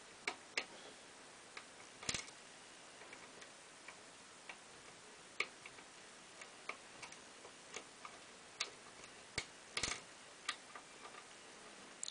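A lock pick and tension wrench working the pin tumblers of a five-pin CES profile cylinder: light, irregular clicks and ticks as the pins are lifted and set. Two sharper clicks come about 2 seconds and about 10 seconds in.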